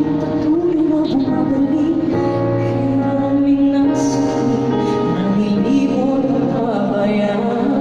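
A woman singing live into a microphone over band accompaniment, amplified through an arena sound system and heard from the audience, with long held notes in the melody.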